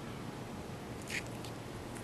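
A boot scuffs once on the flat roof surface about a second in, a short scrape over a faint, steady low rumble.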